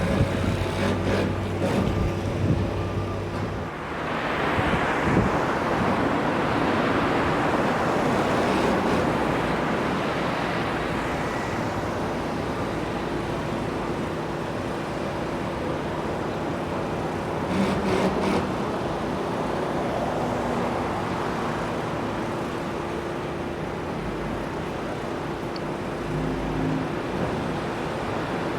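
Road traffic noise: vehicles passing by in a continuous wash, with a steady engine hum underneath and a louder passing vehicle about five seconds in.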